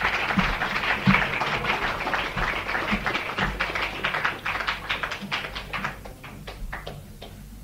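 Audience applauding: a dense round of clapping that thins to a few scattered last claps about six seconds in.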